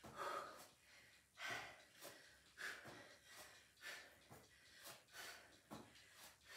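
A woman breathing hard from exertion while holding a plank and rowing her arms: faint, short, breathy puffs in a steady rhythm, about one every half second or so.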